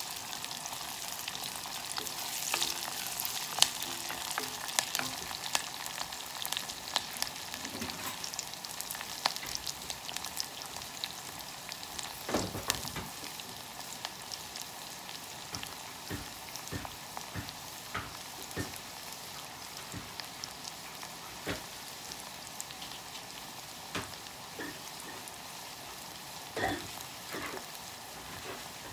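Onion, garlic and ginger sizzling in oil in an enamelled saucepan over a gas flame: a steady frying hiss with scattered crackles and a few louder pops.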